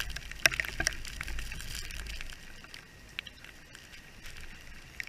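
Rain pattering down, a steady hiss with sharp crackling ticks of drops landing close by, busiest in the first two seconds, over a low rumble.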